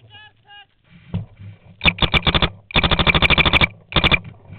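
Paintball marker firing in three rapid bursts, about a dozen shots a second, the longest lasting about a second, starting about two seconds in.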